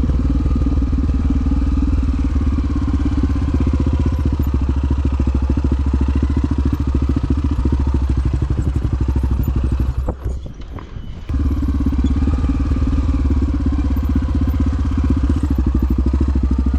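Dirt bike engine running steadily with a fast, even pulse. About two-thirds of the way through, the engine sound drops away for about a second, then picks up again.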